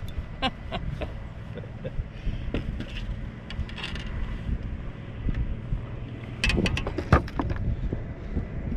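Wind rumbling on the microphone, with scattered knocks and a short splashy rustle as a hooked freshwater drum is grabbed at the boat's side and lifted aboard; the loudest knocks come about seven seconds in.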